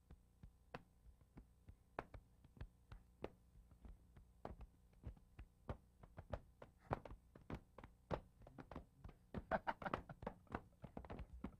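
Quiet, irregular taps and clicks, a few a second at first, coming faster and closer together in the last few seconds.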